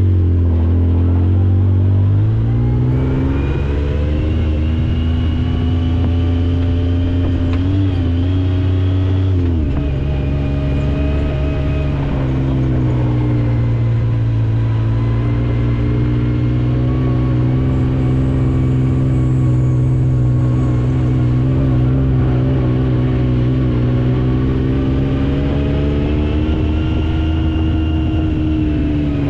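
Yamaha YXZ side-by-side's three-cylinder engine running under load, heard from inside the cab. Its note climbs over the first few seconds, changes abruptly about nine seconds in, then holds fairly steady with a rise and fall near the end.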